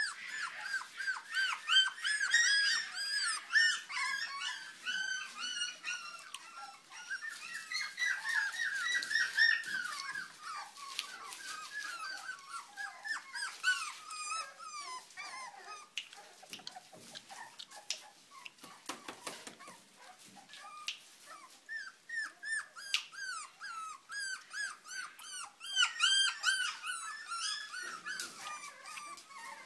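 Poodle puppy whimpering: quick series of short high-pitched whines, thinning out in the middle and picking up again later, with scattered light clicks.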